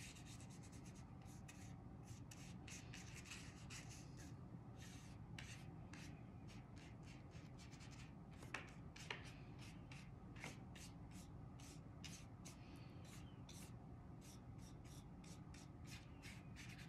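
Faint, quick swishing strokes of a wet paintbrush on thick watercolour paper, with two small taps about eight and nine seconds in.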